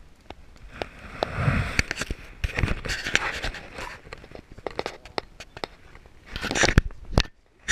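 Close handling noise on the camera: repeated sharp clicks and scraping rubs of hands and clothing against the camera body and its microphone, with louder scraping stretches about a second in, around three seconds in and near the end.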